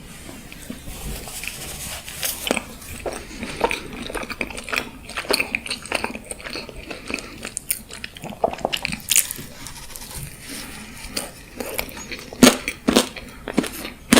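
Close-miked eating sounds: irregular crisp bites and crackly chewing, with several louder crunches near the end.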